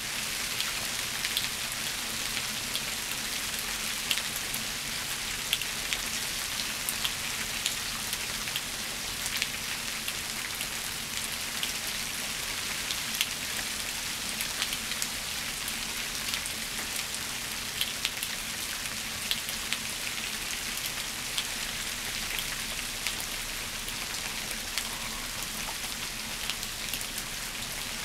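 Steady rain falling on leaves and wet ground: an even hiss with many single drops ticking out sharply above it.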